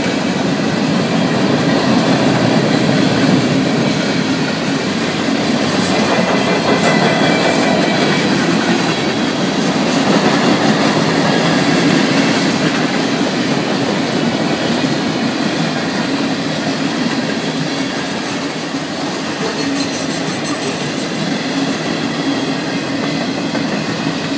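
Freight train cars (hoppers and tank cars) rolling steadily past, steel wheels clattering on the rails in a continuous loud rumble of running gear.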